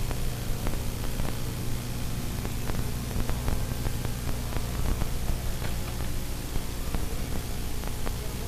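Steady low drone with hiss, consistent with a trolling charter boat's engine running under wind and tape noise, with scattered faint light clicks.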